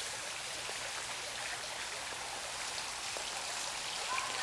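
Steady rush and patter of running water from a backyard garden water feature, with a few faint ticks.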